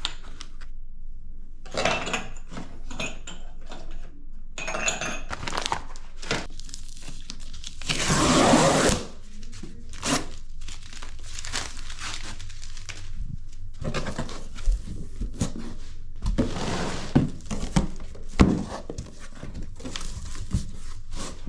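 A display's cardboard shipping box and its packing being opened and handled: irregular crinkling, tearing and scraping, with scattered knocks. One longer, louder tearing noise comes about eight seconds in.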